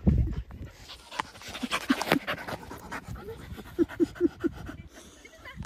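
Schapendoes dog panting close by, with four short pitched sounds in quick succession about four seconds in. A thump at the very start is the loudest moment.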